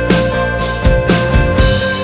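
Background music with a steady drum beat under sustained held tones.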